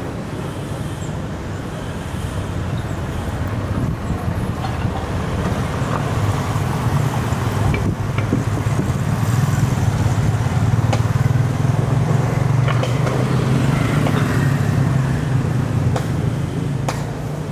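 Street traffic: a motor vehicle's engine running close by, growing louder through the middle and easing off near the end.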